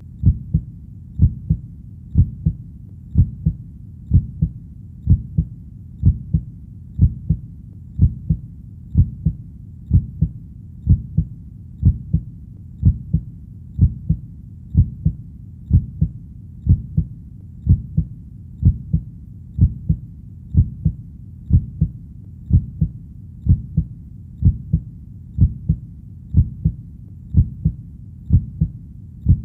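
Heartbeat: steady, even low thumps at about one beat a second, each beat a close pair of thumps, over a continuous low rumble.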